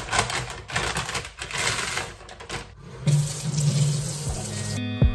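Paper wrapping crinkling in the hands, then, about three seconds in, a kitchen tap running into a stainless-steel sink. Guitar music comes in near the end.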